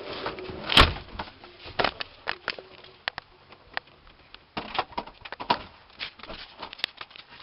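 A door being tried and rattled: a string of clicks and knocks from the latch and door, with one loud thump about a second in.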